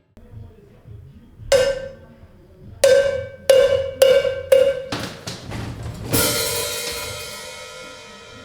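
Drum kit played alone: five separate drum hits, each ringing at the same pitch, then a quick fill that ends in a cymbal crash ringing out slowly.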